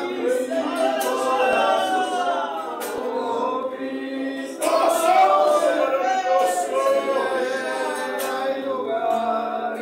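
A church congregation singing together, unaccompanied, many voices overlapping in sustained lines.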